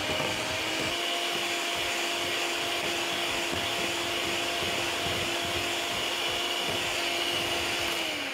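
Electric hand mixer running steadily, its beaters whipping a creamed margarine, sugar and egg cake batter. The motor speeds up in the first second and winds down at the very end.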